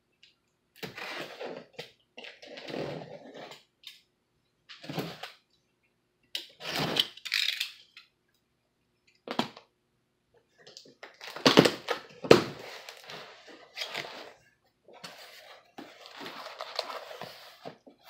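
Utility knife slicing through packing tape and cardboard on a shipping box, with cardboard scraping and rustling in irregular bursts. Two sharp knocks come about halfway through, and the box flaps rustle near the end.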